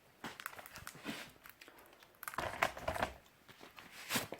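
Scrapes and knocks of a metal wood-stove door and a split pine log being handled as the stove is loaded, with one sharper knock near the end.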